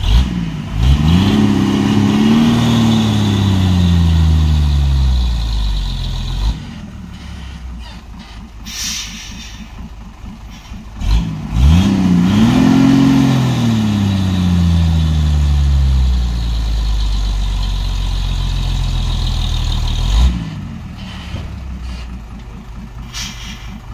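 Mitsubishi heavy truck's diesel engine labouring up a steep climb: twice its note rises quickly, then sinks slowly in pitch as the engine lugs down under load, and each time it drops away abruptly.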